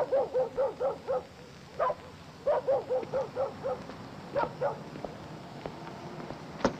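A dog barking in quick runs of short yaps, about five a second, with pauses between the runs. A sharp click comes near the end.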